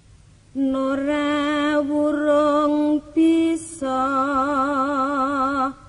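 A single voice singing slow, chant-like long-held notes with a wide vibrato. It starts about half a second in, breaks briefly twice in the middle, and stops just before the end.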